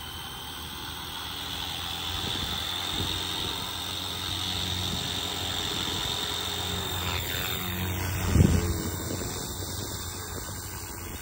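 Electric RC scale helicopter spooling up its main rotor for takeoff: a high whine that rises slowly in pitch as the rotor speeds up, then falls away as the helicopter lifts off and moves off. About eight seconds in there is a brief, loud low rush.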